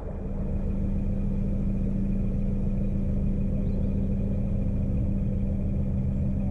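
Narrowboat's engine running steadily under way, an even low drone with a strong constant tone.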